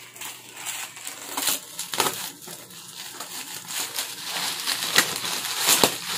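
Plastic bubble wrap crinkling and rustling as it is pulled back and cut with scissors off a wrapped box, with several sharp snaps scattered through.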